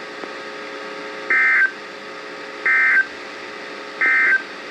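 Emergency Alert System end-of-message signal on NOAA Weather Radio: three short digital data bursts, evenly spaced about 1.3 seconds apart, marking the end of the severe thunderstorm warning.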